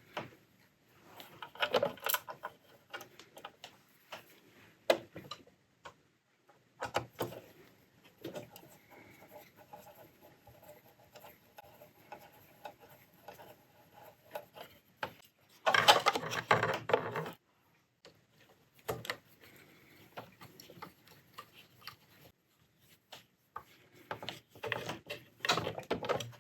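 Hands fitting the plastic back cover onto an old Hobbylook 794 overlocker: scattered clicks, taps and knocks of plastic and metal parts, with a louder rattling, scraping stretch of about a second and a half some sixteen seconds in.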